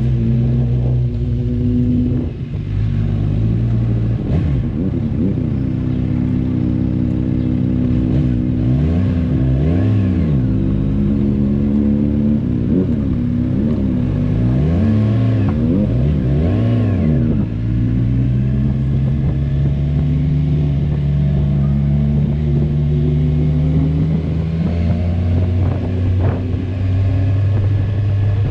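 Kawasaki Z1000R's inline-four engine on its stock exhaust, heard while riding. Its pitch rises and falls several times in the middle stretch, then holds steady for the last ten seconds.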